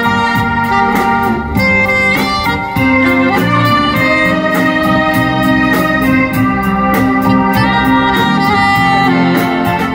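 Live saxophone playing a sustained melody over a drum kit's steady beat and a keyboard-like backing.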